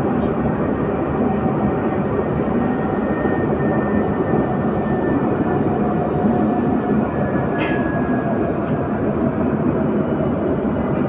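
Light-rail tram running, heard from inside the car: a steady rolling rumble of wheels on rails with a faint steady whine, and one brief click about two-thirds of the way through.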